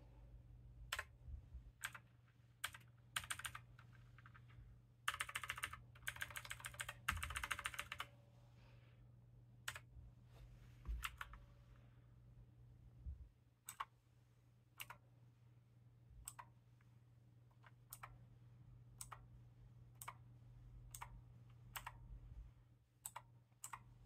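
Clicky blue mechanical key switches on a White Shark Commandos Elite keyboard being pressed: a few single clicks, two short runs of rapid clicking about five to eight seconds in, then single key presses roughly once a second through the second half.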